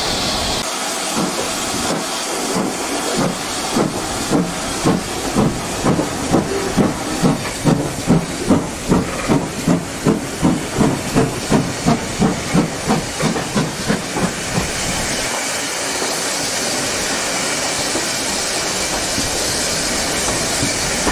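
Steam locomotive exhaust chuffing at about two to three beats a second, loudest through the middle, then giving way to a steady hiss of steam for the last few seconds.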